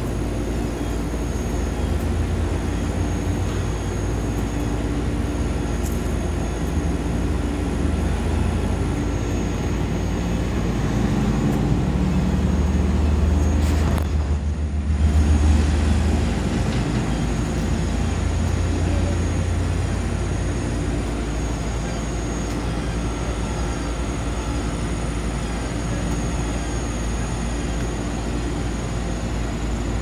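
Heavy-duty rotator tow truck's diesel engine running steadily while its boom lifts a load. It revs up for a few seconds around the middle, then settles back.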